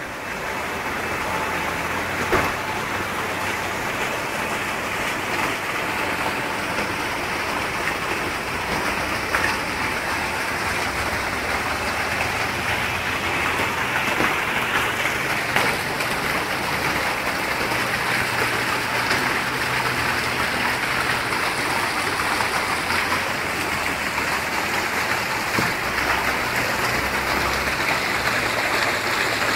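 Running water rushing and splashing steadily into a fish pond, a continuous even hiss that doesn't let up.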